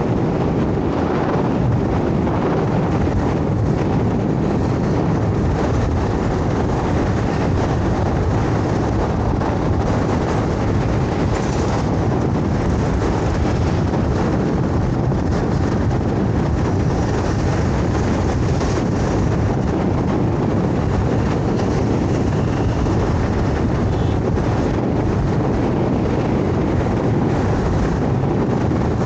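Steady road and wind noise from riding a scooter through city traffic, with wind pressing on the microphone; the noise holds even, mostly low in pitch, with no clear horn or engine note standing out.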